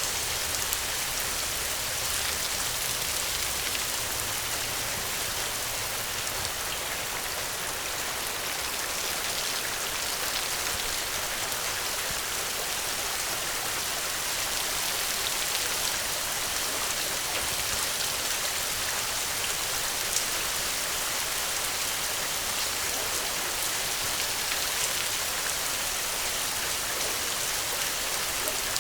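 Steady rain falling, a dense even hiss of drops with fine individual patters throughout.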